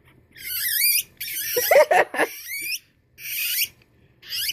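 Guinea pigs squeaking: high-pitched, wavering squeals in four bursts, the second one the longest and loudest.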